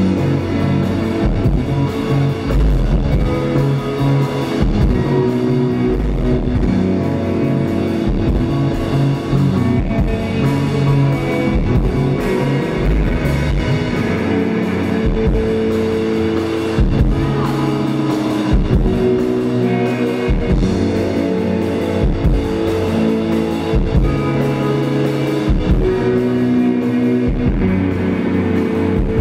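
A band playing live: electric guitar over a drum beat and keyboard tones.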